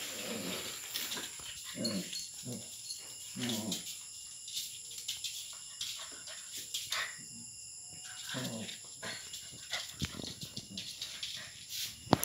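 Puppies growling and barking as they play-fight, in short calls every second or two, with a quieter stretch in the middle.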